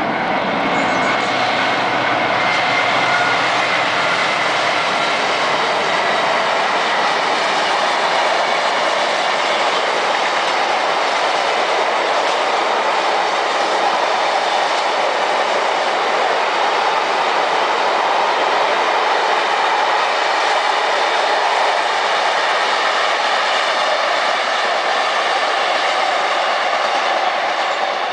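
Freight train of bogie tank wagons hauled by two Class 60 diesel locomotives passing: a loud, steady noise of wheels running on rail. A few faint steady tones show in the first few seconds.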